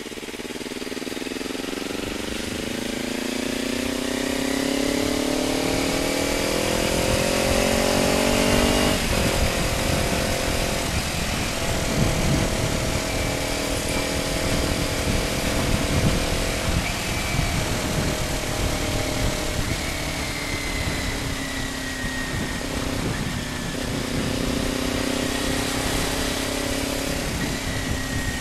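Kawasaki Ninja motorcycle engine through an Akrapovic slip-on exhaust, revs climbing steadily under acceleration for about nine seconds, then dropping sharply at an upshift and settling into cruising with small throttle changes. Wind rumbles on the microphone as speed builds.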